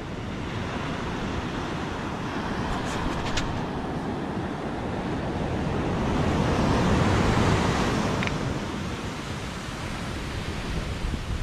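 Ocean surf breaking and washing up a sandy beach, a steady rush that swells to its loudest about seven seconds in and then eases.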